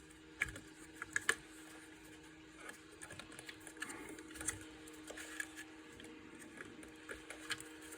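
Faint scattered clicks and scrapes of small parts being handled as screws and a plastic fire-alarm sounder base are worked into place, over a steady low hum.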